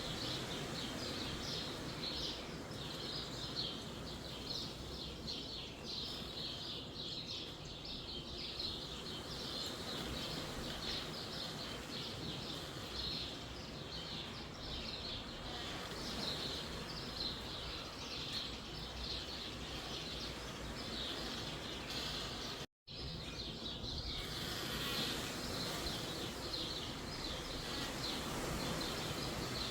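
Wind in a forest with a dense, continuous chorus of small birds chirping. The audio drops out completely for a moment about 23 seconds in.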